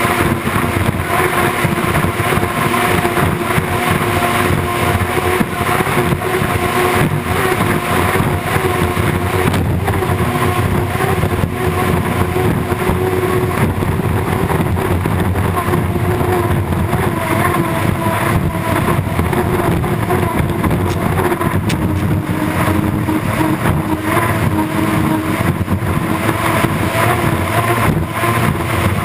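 Unlimited hydroplane's turbine engine running flat out at racing speed, heard on board: a steady whine over the rush of hull, spray and wind noise.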